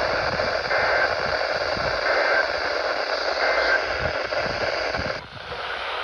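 Weather radio receiver hissing with static, with three short, faint bursts of two-tone digital data about a second apart, the pattern of an EAS end-of-message code sent three times after a warning. The hiss drops away about five seconds in.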